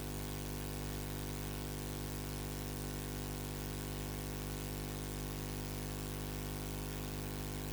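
Steady electrical hum with hiss, unchanging throughout: the noise of an audio feed carrying no programme sound.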